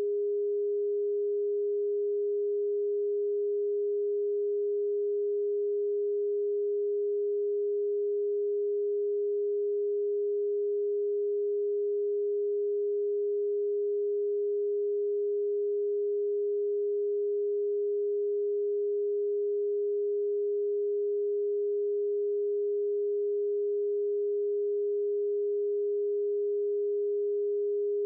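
A pure sine tone of around 400 Hz, generated electronically and played as a Rife frequency, held perfectly steady with no change in pitch or loudness.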